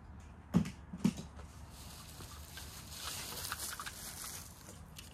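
Two sharp knocks about half a second apart near the start, then soft crinkly rustling, as small die-cast toy cars and their packaging are handled and set down.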